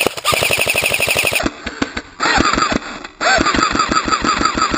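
Airsoft guns firing on full auto: rapid, evenly spaced shots with a motor whine, one long burst to about a second and a half in, then quieter shots, then another long burst from about three seconds in.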